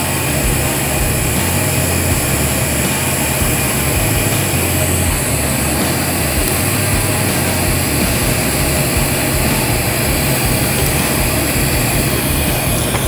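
A steady, unbroken machine drone with a hiss over a low hum, with no audible break while the TIG arc is struck and stopped for tack welds on a stainless steel O2 sensor bung.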